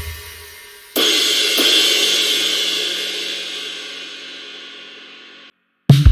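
Sampled acoustic drum kit from the Drum Daddy Kontakt library. As a groove's last hit dies away, a cymbal is struck about a second in and rings out, fading slowly for about four seconds before cutting off abruptly. Near the end a drum groove with kick and snare starts up again.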